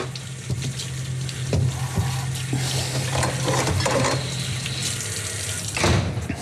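Refrigerator being loaded: rustling and small clinks as items are put onto its shelves over a steady hum, then a thud near the end as the fridge door shuts.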